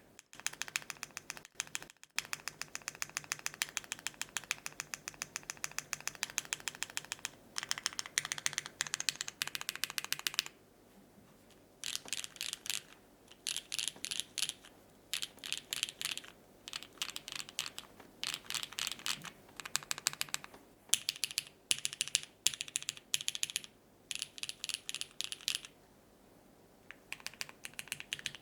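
Typing on a Keycult No. 2/65 gasket-mounted keyboard with lubed, filmed, retooled Cherry MX Black linear switches, an aluminium plate and GMK keycaps. The first ten seconds are fast continuous typing. After a short pause, the keystrokes come in quick bursts with brief gaps between them.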